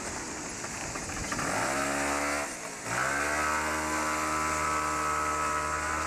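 A motor vehicle's engine pulling away. Its pitch rises from about a second and a half in, drops briefly, rises again and then holds steady.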